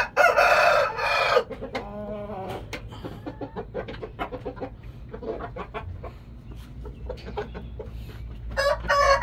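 Roosters crowing: one loud crow right at the start and another beginning near the end, with softer chicken clucks and scratching sounds between.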